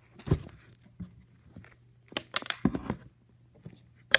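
Someone moving about and handling things: a few scattered thumps and rustles, a short cluster of them about halfway through, and a sharp knock at the very end.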